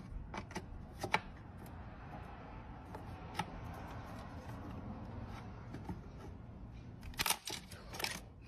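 Scattered plastic clicks and taps from a RAM stick being handled and pressed into a desktop motherboard's memory slot, the loudest cluster near the end, over a low steady hum.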